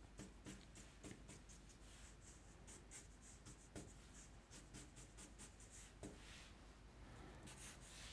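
Faint scratching of a black marker pen on paper, many quick short strokes in a row as fur lines are drawn.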